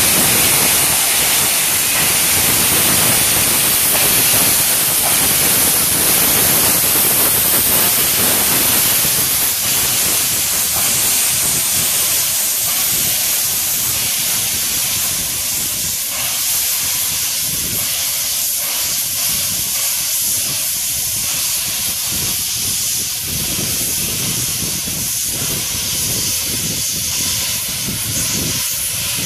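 Bulleid West Country class steam locomotive 34027 Taw Valley blowing off steam, with its safety valves lifting and its cylinder drain cocks open: a loud, steady hiss that eases slightly about ten seconds in.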